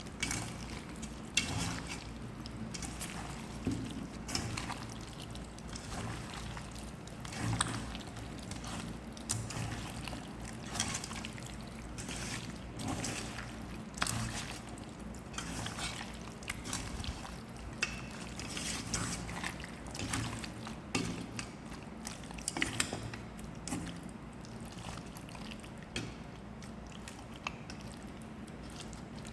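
Raw chicken being mixed in a wet marinade of curd, oil and fried onions in a bowl: irregular wet squelches and small clicks.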